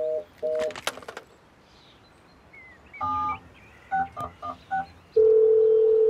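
Telephone-style electronic tones as cartoon sound effects: a repeated two-note beep about twice a second that stops just under a second in, then a few short touch-tone dialing beeps, then a long steady dial tone starting about a second before the end.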